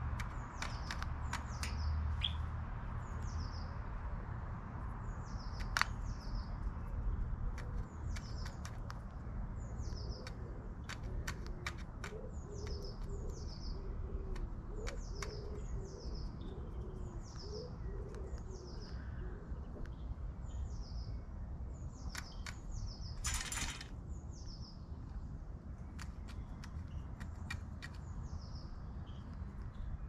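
A small songbird chirping over and over, short high notes that fall in pitch, about one a second. Scattered sharp clicks, a short rustling burst about two-thirds of the way through, and a steady low rumble underneath.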